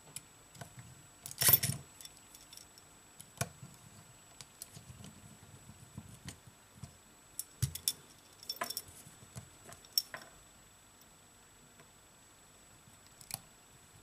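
Small tools and parts being handled during iPhone 7 reassembly: scattered light clicks and taps of metal on the phone and the work surface, with one louder clatter about a second and a half in.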